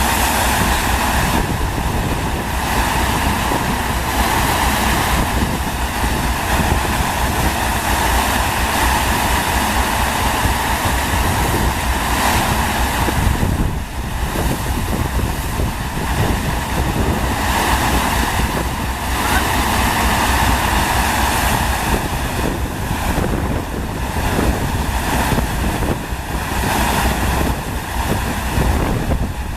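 Steady rush of water from a FlowRider surf simulator, its pumped sheet of water pouring over the wave surface, with wind buffeting the microphone in a low rumble that swells and eases.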